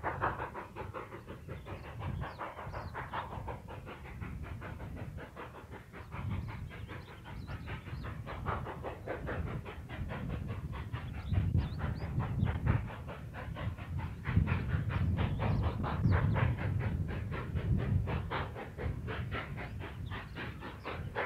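Cumbres & Toltec K-36 2-8-2 narrow-gauge steam locomotive chuffing in a quick, even beat over the low rumble of the train, getting louder in the second half as it comes closer.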